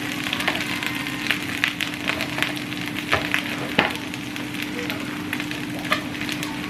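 Halved Brussels sprouts sizzling in hot oil in a skillet, with frequent sharp crackling pops over a steady hiss. A steady low hum runs underneath.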